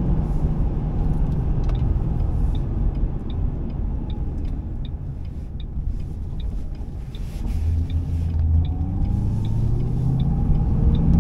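A 2005 Ford Mustang GT's 4.6-litre V8 heard from inside the cabin, rumbling at low revs and then rising in pitch over the last few seconds as the car accelerates. Faint steady ticking, a little more than once a second, sounds over it.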